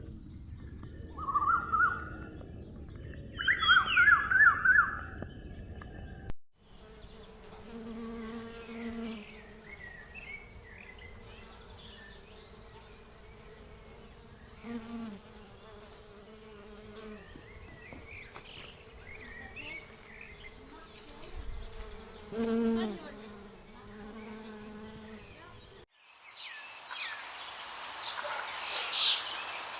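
A flying insect buzzing: a low hum that comes and goes for most of the stretch, with faint chirps above it. It is preceded by a short clip of bird calls over a steady high insect trill, and at the end a clip of high, quick bird chirps cuts in.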